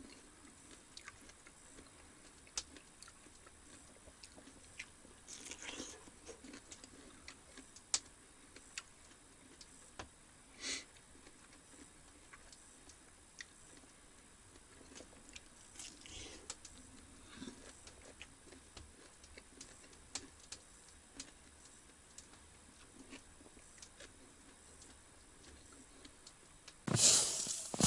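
Faint, scattered clicks and light taps in a small room, with a louder rustling noise starting about a second before the end.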